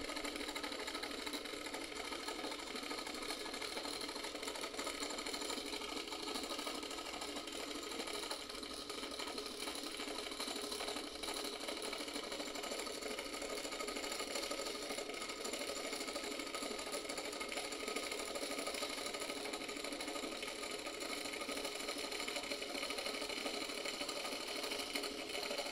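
Small electric motor belt-driving an eccentric weighted rotor on a plywood board, running steadily with a fast mechanical whir and clatter. The rotor's unbalanced spin shakes the board, which is what makes it creep across the floor.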